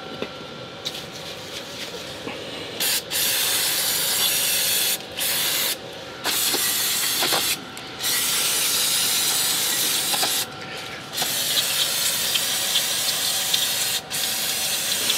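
Aerosol can of CRC Lectra Clean 3000 electrical cleaner spraying in long hissing bursts. After a faint start, the loud spraying begins about three seconds in and runs in bursts of one to three seconds separated by brief pauses.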